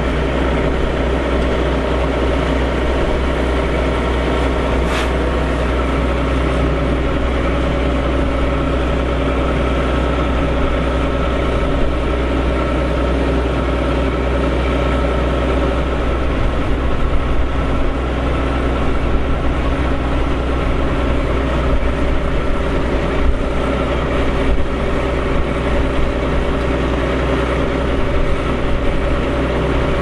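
The diesel engine of a Challenger TerraGator 3244 slurry applicator idling steadily, a deep, even engine note.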